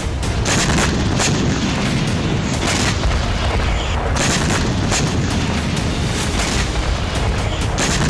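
Gunfire and explosions: irregular sharp shots and heavy booms over a continuous low rumble, with music underneath.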